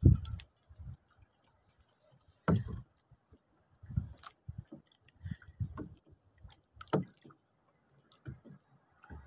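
Small waves slapping against a small outrigger boat's hull and bamboo outrigger: irregular dull knocks and splashes every second or two, the loudest right at the start and about two and a half seconds in.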